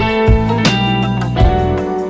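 Instrumental background music: sustained melodic notes over a regular beat.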